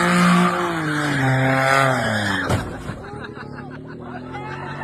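A loud engine or motor whose pitch falls steadily for about two and a half seconds. A cut then gives way to a quieter, steady mechanical hum.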